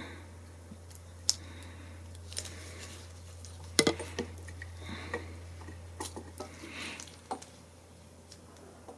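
Small metal parts of a car door lock cylinder clicking and tapping as they are handled and fitted together, with a few sharper clicks, a cluster of them about four seconds in, over a steady low hum.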